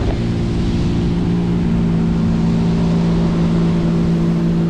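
Outboard motor pushing a small boat along at a steady cruising speed: an even, unchanging drone over the rush of water from the wake.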